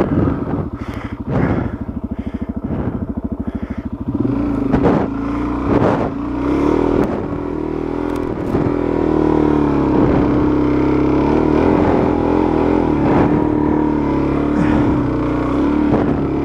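Dual-sport motorcycle engine chugging at low revs with a rapid, even pulse. About four seconds in the throttle opens and it runs on at higher revs, with a few knocks and clatters from the bike.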